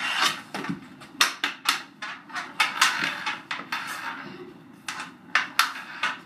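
Floor-hockey sticks clacking against each other and slapping on a hard floor, in quick, irregular sharp knocks.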